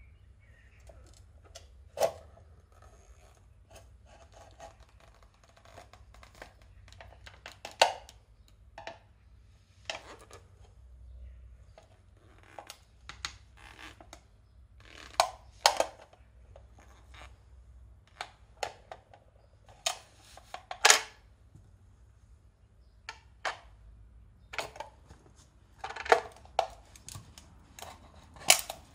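Wooden-soled clogs stamping on and crushing an empty tin food can on concrete: sharp metallic crunches and clanks at uneven intervals as the can buckles flat, a few of them much louder than the rest.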